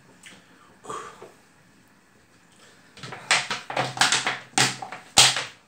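A man's heavy breathy exhalations, several in quick succession near the end, as he catches his breath after chugging a 1.5-litre cola.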